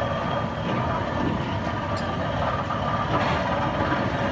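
Heavy foundation drilling rigs running their diesel engines steadily while boring into the ground, a dense continuous machinery noise with a faint steady whine.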